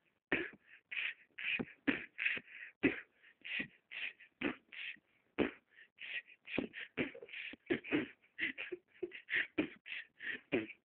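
A person beatboxing: a quick, steady run of mouth-made drum sounds, low kick-like thumps alternating with sharper, hissy snare-like hits, about three a second.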